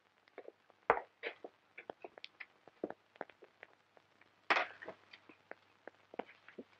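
Scattered light clicks and small knocks over a faint low hum, with a louder scuffing sound about four and a half seconds in.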